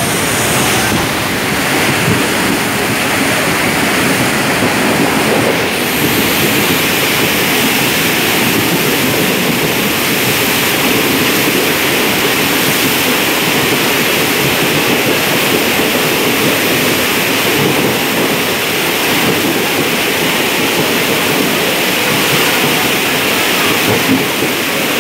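Indian Railways passenger train coaches running through floodwater covering the tracks, with a steady, loud rush of churning and spraying water.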